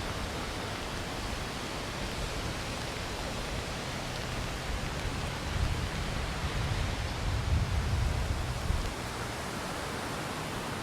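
Steady hiss of wind and rain, with wind gusts buffeting the microphone as low rumbles between about five and nine seconds in.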